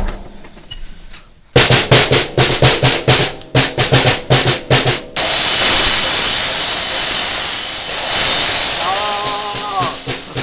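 Drum kit played loudly: a run of separate hits on the drums begins about a second and a half in, then turns into a continuous fast roll for the last five seconds.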